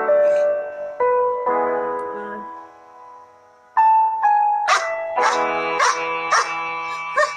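Piano music with sustained notes fades almost to nothing about a third of the way in, then comes back. After that a dog yelps repeatedly over it, about twice a second.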